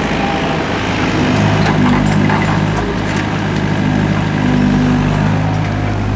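Doosan DX55W wheeled excavator's diesel engine running steadily as the bucket digs, growing louder for a stretch about a second in and again near the end. A few light knocks from the brick rubble and soil.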